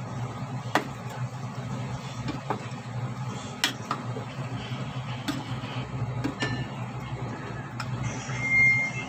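A spoon stirring pork pieces in a pot, knocking against its side in a handful of sharp clicks over a steady low hum. Near the end a brief high, steady tone sounds, the loudest moment.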